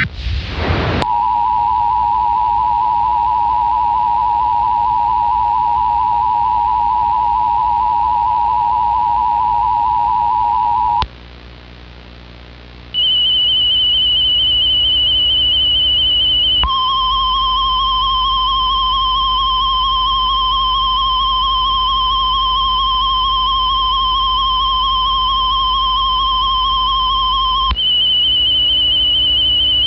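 Emergency Alert System attention tones with a slight wavering pitch. A mid-pitched two-tone signal runs for about ten seconds and then drops away for a couple of seconds. A single high tone follows, joined for about eleven seconds by a lower and a higher tone, and then goes on alone, all over a low steady hum.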